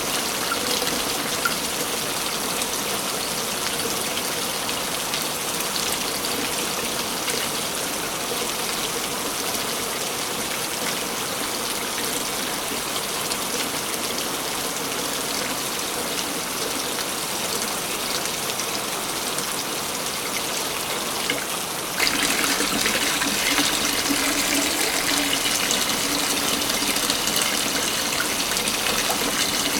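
Waterfall: a steady rush of falling water. About 22 seconds in it abruptly becomes louder and brighter and stays so.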